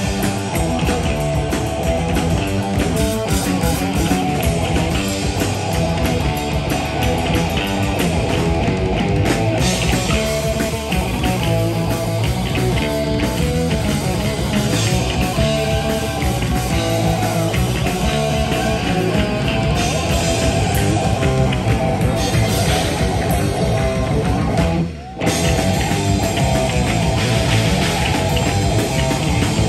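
Live heavy metal band playing loud: two distorted electric guitars over drums and bass, breaking off for a split second about 25 seconds in before carrying on.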